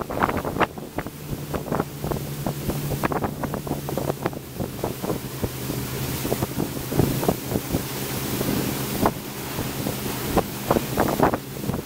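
Motorboat engine running steadily under way while towing a skier, its low hum mixed with the rush of water from the wake. Frequent wind gusts buffet the microphone.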